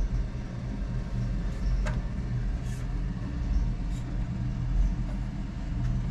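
Steady low hum of background machinery, with a few faint clicks about two, three and four seconds in.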